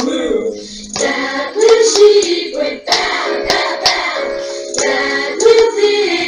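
A woman singing a children's song unaccompanied, with sharp hand claps marking a triple-meter pattern.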